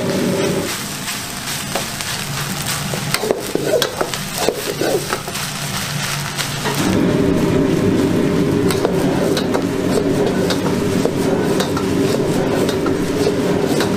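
Metal ladle scraping and clacking against a wok as egg fried rice is stirred and tossed, sizzling. Under it is the steady rush of the gas wok burner, which drops away about a second in and comes back after about seven seconds.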